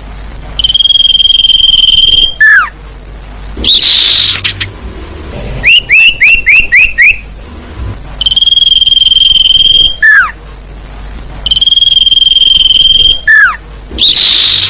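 Looped bird-lure call of the sirtu, played as a female's call to draw males: long steady high whistled notes, each ending in a quick falling glide, a short harsh burst, and a run of six quick rising chirps about halfway through, the pattern repeating.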